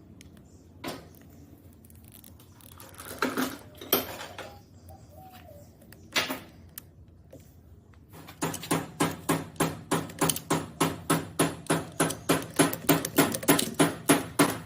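Tool handling: a few scattered clicks and knocks, then rhythmic clicking about three times a second over a low hum, growing louder in the lead-up to drilling.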